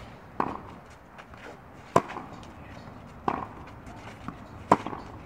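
Tennis ball struck back and forth by racquets in a rally: four hits about a second and a half apart, sharp loud hits alternating with duller ones.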